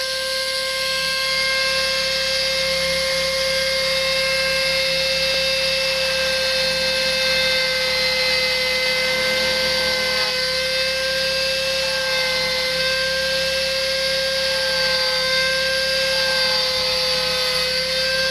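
Manpatools multi cutter with a small belt cutter attachment running with a steady whine while its cutter carves texture into a wooden block.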